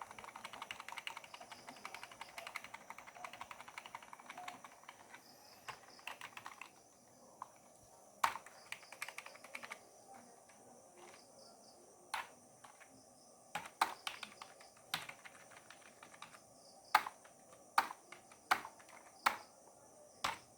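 Computer keyboard keys being pressed while entering and navigating the BIOS setup: a rapid run of key taps for about the first seven seconds, then about ten single, sharper key presses spaced a second or so apart.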